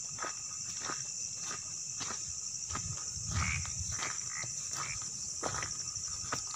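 Night chorus of crickets, a steady high trill, with scattered light clicks and rustles of footsteps on the forest floor.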